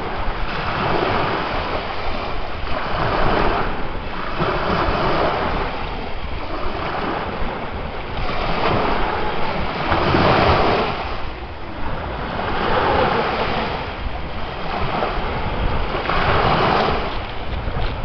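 Ocean waves breaking and washing onto the shore, the surf swelling and falling back every two seconds or so, with the loudest surge about ten seconds in.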